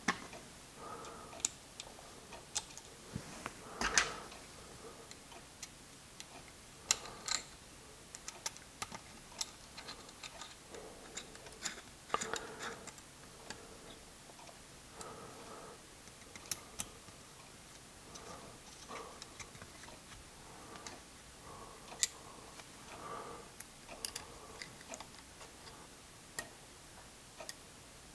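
Small, irregular metallic clicks and ticks of screws being picked up, set and turned into the aluminium top rail of a Browning Buck Mark Contour pistol, with soft handling scrapes between; one louder click about four seconds in.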